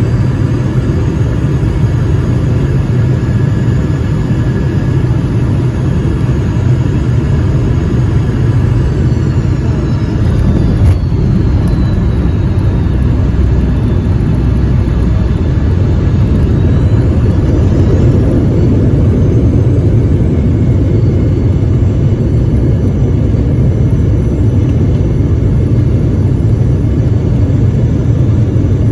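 Jet airliner cabin noise during landing, heard from a seat over the wing of a Boeing 717: a steady low rumble of engines and airflow, with an engine whine that falls in pitch. A single thump about 11 seconds in as the wheels touch down, then the whine rises again and the rumble grows louder as the jet rolls along the runway.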